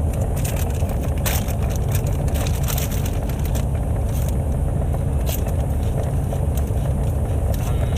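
Crunchy fried pork rinds being chewed with a full mouth, an irregular crackling crunch, over the steady low rumble of a car cabin.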